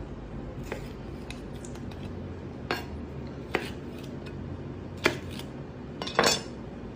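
Chef's knife chopping through raw fish flesh onto a plastic cutting board: about half a dozen sharp, irregularly spaced knocks of the blade on the board, the loudest near the end, the last a quick double knock.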